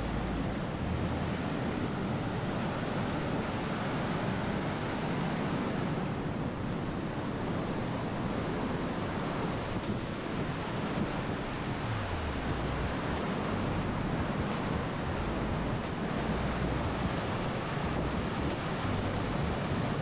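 Steady roar of Gullfoss waterfall and the rushing white-water rapids of the Hvítá river, with wind buffeting the microphone.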